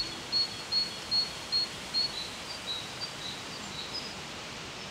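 A bird calling, a run of short high notes about three a second, loudest in the first two seconds and then fainter, over a steady outdoor background hiss.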